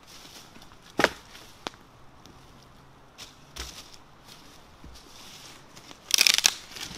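Dry dead branches being dropped and handled over dry leaf litter: a sharp crack about a second in, a few scattered snaps and crunches, then a loud burst of crackling and snapping near the end.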